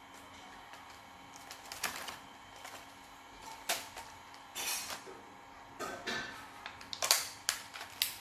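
Barbie toy-box packaging being worked open by hand: sticky tape peeled and cardboard and plastic handled in short, irregular rustling and tearing bursts, the loudest near the end.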